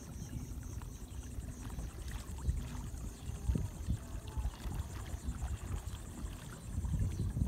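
Water lapping against a kayak hull with wind buffeting the microphone, heard from a kayak out on a lake. A faint steady high buzzing of insects carries over the water.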